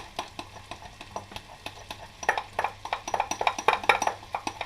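Onion sizzling and crackling as it fries in melted butter and oil in a saucepan. The crackle grows denser and louder about two seconds in.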